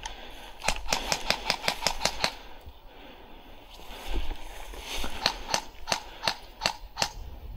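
Airsoft gun shots: a fast string of about ten sharp cracks, then after a pause a slower string of about seven.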